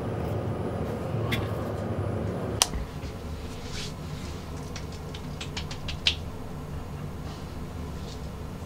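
Steady hum and noise inside a moving lift, cut off by a sharp click; then a quieter steady low hum of a small room, with a quick run of small clicks about five to six seconds in.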